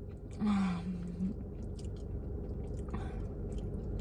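A person chewing a mouthful of food with small wet mouth clicks, with a short closed-mouth hum about half a second in.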